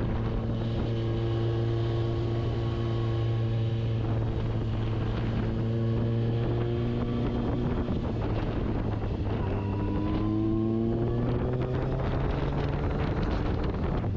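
Motorcycle engine running at steady revs under way, with wind buffeting the microphone. The engine pitch drifts up a little in the second half.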